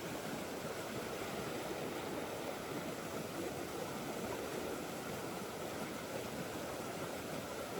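River water rushing and babbling in a steady, unbroken flow.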